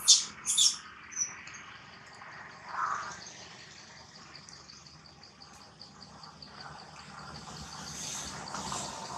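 Forest ambience: two sharp, high chirping calls in the first second, then an insect's steady, evenly pulsed high trill, with a short lower sound about three seconds in.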